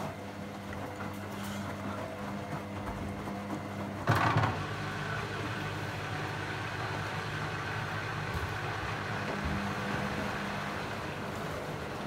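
Beko WM5122S washing machine at the end of its rinse: the drain pump hums steadily as the drum turns the wet load, ahead of the final spin. There is a single loud thump about four seconds in.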